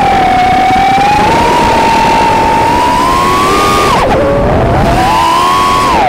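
Brushless motors (Racerstar BR2205 2600KV) of an FPV racing quad, recorded by its onboard Runcam 3 camera's microphone: a loud whine that shifts in pitch with throttle, dropping sharply about four seconds in, climbing again and falling once more near the end, over a rough low noise.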